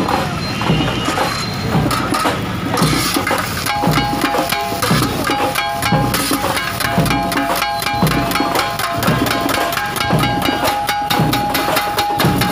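Flat steel spatulas striking a large iron griddle over and over in a fast, uneven clatter as food is chopped and mixed on it.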